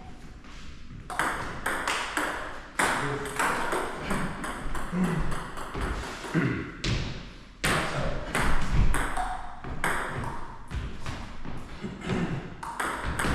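Table tennis ball being played back and forth: many sharp, quick clicks of the ball off the bats and table, with short gaps between rallies.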